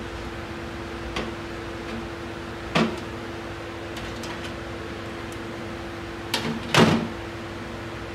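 Automatic transmission clutch plates and drum being handled and set down on a workbench: a light click about a second in, a knock near three seconds and a louder double knock near seven seconds, over a steady background hum.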